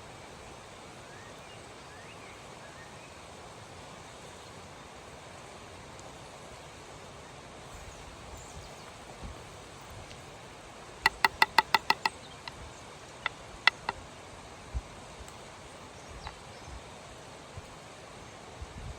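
Steady outdoor background noise, broken about halfway through by a quick run of seven or eight sharp, ringing clicks, followed by a few single clicks.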